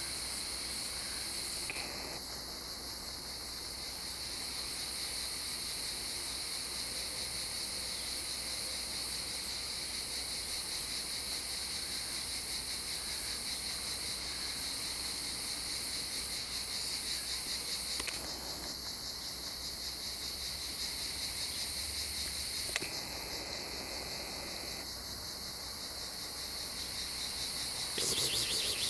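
A steady, high-pitched chorus of chirring insects, with some callers stopping and starting again every few seconds and the chorus growing louder near the end.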